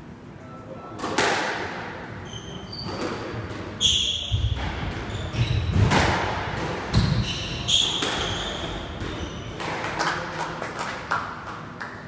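A squash rally: the ball cracks sharply off the racquets and the court walls again and again, with short high squeaks of sneakers on the wooden floor and the dull thud of footfalls.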